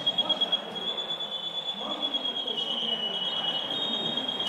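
Laser tag equipment giving a steady high-pitched electronic tone that drops slightly in pitch about halfway through and then warbles in quick pulses, with a fast run of sharp electronic pulses in the first half-second.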